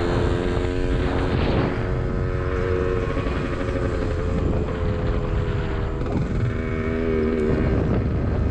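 1977 Yamaha DT100's 100cc two-stroke single engine running steadily as the bike rides along, its pitch drifting with the throttle. Wind and road rumble sit underneath.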